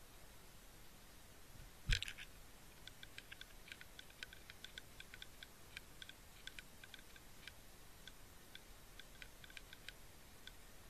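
One sharp knock about two seconds in, then irregular light clicking, several clicks a second, picked up underwater by the camera on the fishing rig.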